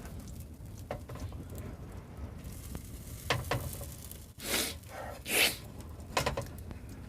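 Eggs frying in an oiled skillet over high heat: a faint, steady sizzle, with a few light clicks and two short hissy swells a little past the middle.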